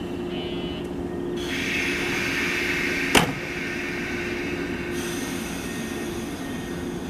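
JR West 117-series electric train standing at the platform, its equipment humming steadily. About a second in, air starts hissing as the pneumatic doors close, with a sharp knock about three seconds in as they shut.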